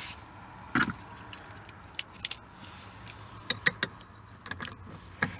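Scattered sharp clicks and light taps of a screw and screwdriver being handled and fitted into the plastic interior door-handle surround.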